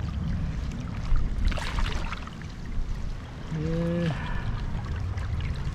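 Wind buffeting the microphone and water splashing and trickling at the waterside, with a few short clicks. About three and a half seconds in, a man gives a short hum.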